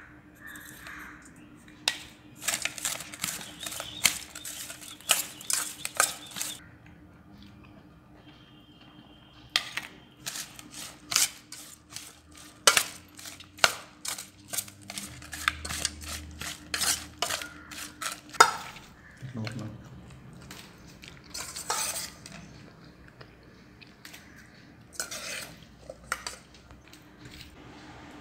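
Metal fork stirring and scraping inside a stainless steel bowl, clinking against the metal sides as jackfruit pieces are tossed with sugar and grated coconut. It comes in runs of rapid clinks separated by short pauses.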